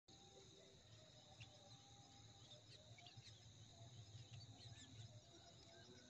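Faint field ambience: a steady high-pitched insect drone with scattered soft bird chirps over a low rumble.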